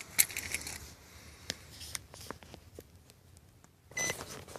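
Scattered small clicks and handling noise, then a short electronic beep about four seconds in.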